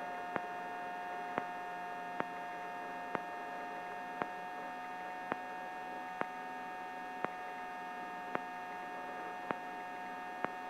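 Steady electrical hum with several fixed tones on the helicopter's intercom audio feed, with a faint tick about once a second.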